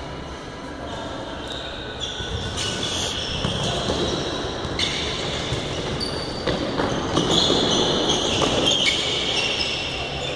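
Futsal ball being kicked and bouncing on a hard indoor court, with shoes squeaking on the floor several times, all echoing in a large hall.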